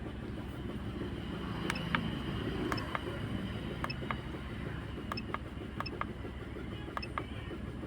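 Small car engine running steadily, with sharp short clicks, often in close pairs, coming about once a second.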